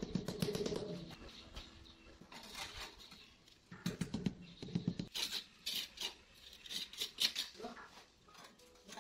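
Rubber mallet tapping bricks down into a bed of clay mortar: short dull knocks in bunches, quickest in the second half, with the clatter of bricks being handled.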